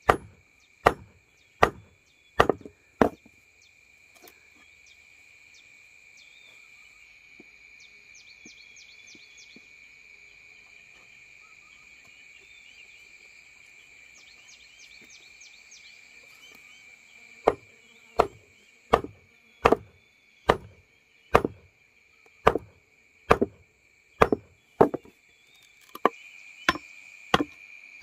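Chopping: a blade striking wood in steady, even blows about one and a half a second. The blows stop after a few seconds and start again near the end. Underneath, a steady high drone of insects with short chirping runs carries on.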